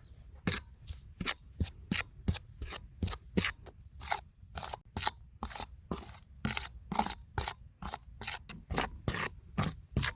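Repeated short scraping or cutting strokes of a kitchen utensil, about three a second, in a steady rhythm.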